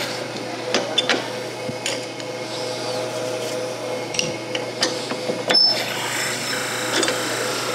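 Wood lathe running with a steady hum while a drill bit held in a tailstock chuck is fed into a pen blank, with a scatter of sharp clicks and ticks.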